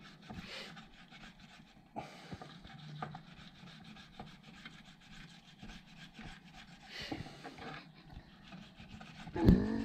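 Fillet knife scraping and cutting through a raw catfish fillet against a wooden cutting board, working the skin away from the meat in small, irregular strokes. A brief vocal sound near the end.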